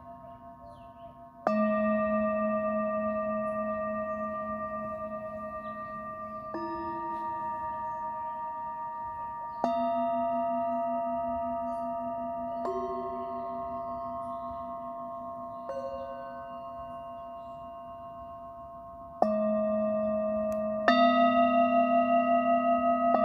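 Hand-hammered singing bowls struck one after another with a mallet, about seven strikes, some soft and some firm. Each bowl rings on in long overlapping tones that fade slowly with a pulsing waver.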